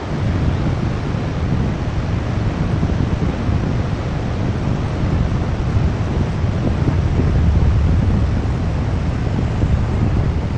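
Wind buffeting the microphone over a steady roar of falling water at Niagara Falls, heaviest in the low end.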